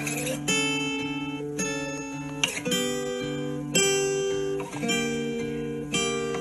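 Background music: an acoustic guitar playing plucked chords and melody notes.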